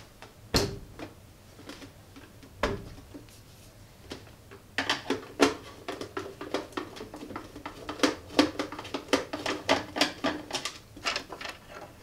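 Hands handling a small plastic mini dehumidifier on a silicone work mat: two knocks as it is set down and moved, then from about five seconds in a quick run of plastic clicks and taps on its casing.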